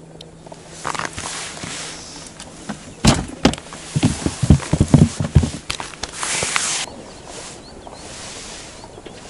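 Handling noise: clothing rustles and a few clicks, then a quick run of dull thumps between about three and five and a half seconds in, and a brief scratchy rustle just after six seconds.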